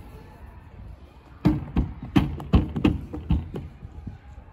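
A quick run of about seven thumps, roughly three a second, starting about a second and a half in.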